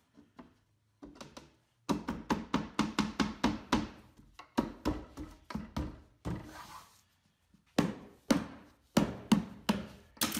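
Hand tapping and slapping a quarter-inch cherry plywood back panel to seat it into the glue on a bookcase case: a quick series of hollow wooden thunks, with a short pause partway through and a few more taps near the end.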